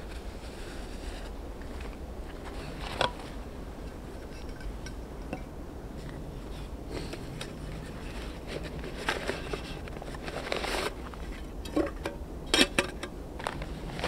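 Metal camping cookware being handled: a pot, its lid and a kettle knock and clink against each other, with scattered sharp clanks, the loudest near the end.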